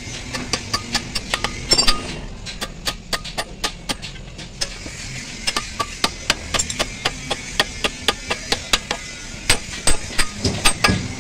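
Hand hammer striking the steel parts of a truck suspension bell crank, a quick run of sharp metallic blows, several a second, that ring after each hit. The blows are lighter for a stretch in the first half, then heavier again.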